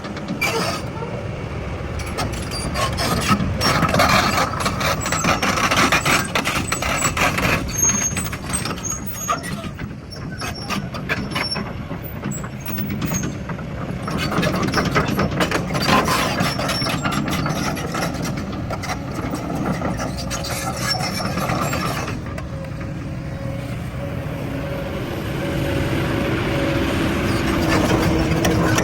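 Heavy earth-moving machinery working: diesel engines running under load, with many knocks and clanks and a steady hum rising near the end.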